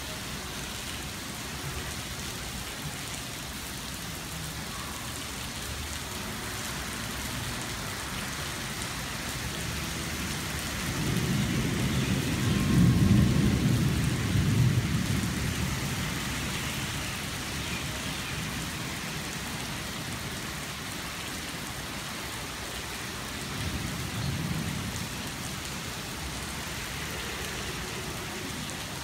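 Heavy rain falling steadily. A low rumble of thunder swells about eleven seconds in, is loudest for a few seconds and dies away; a shorter, fainter rumble comes later.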